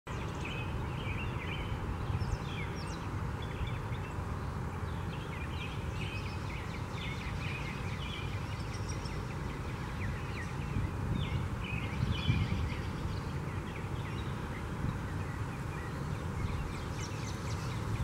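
Birds chirping outdoors, many short high calls scattered throughout, over a steady low rumble.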